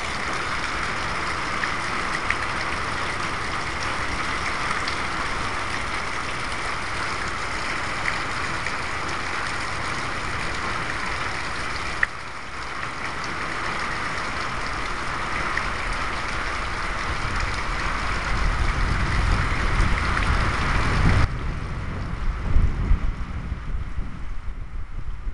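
Steady hiss of heavy rain during a storm. Gusts of wind buffet the microphone in the last third, and the rain hiss drops off suddenly near the end.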